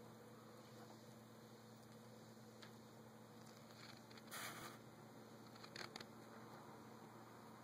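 Near silence: faint steady hum and hiss of room tone, broken by a short soft scrape about halfway through and a couple of brief light scratches just after.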